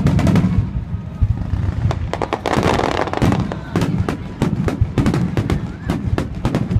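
Fireworks display: a loud bang at the start, then many rapid, irregular crackling pops and bangs from aerial shells bursting.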